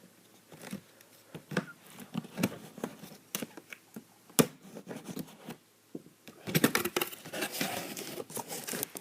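Toy box packaging being opened by hand: scattered light taps and clicks at first, then denser tearing and crinkling from about six and a half seconds in.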